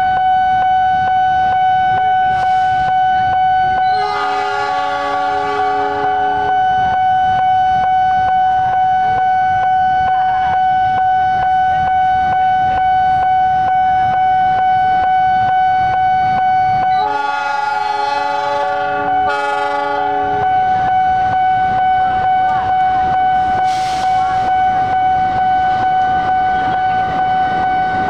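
A CC206 diesel-electric locomotive's horn sounds a chord twice, a few seconds in for about two seconds and again past the middle for about three seconds with a brief break. Under both blasts, a level-crossing warning signal keeps up a steady high-pitched tone.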